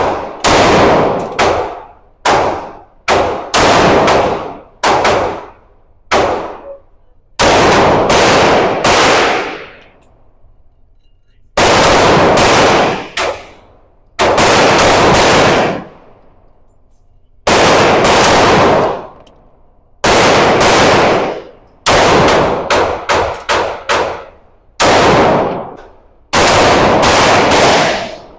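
Gunfire from a firearm being shot at a range: single shots fired in quick succession, about half a second apart, each ringing out and fading, in strings broken by pauses of one to three seconds.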